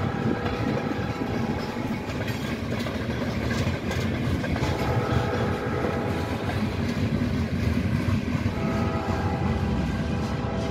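Freight train tank cars rolling past: a steady rumble and clatter of steel wheels on the rails. Several long, steady tones sound over it, fading for a couple of seconds near the middle and returning.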